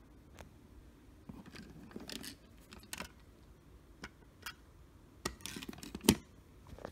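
1/64-scale diecast model cars and a model truck being handled and set down on a road mat: scattered small clicks, taps and light scrapes, with one sharper click about six seconds in.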